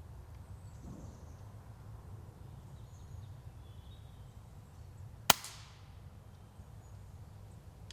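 A single sharp air rifle shot about five seconds in, with a short fading tail, over a low outdoor background with faint bird chirps now and then.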